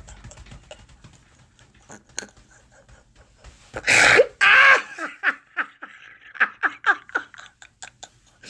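A person laughing hard: a loud outburst about four seconds in, then a run of short repeated laughs.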